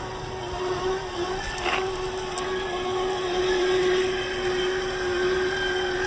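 Traxxas TRX4 RC crawler trucks running through shallow water: a steady electric motor and gear whine of slightly wavering pitch, over the splashing of their tyres in the stream.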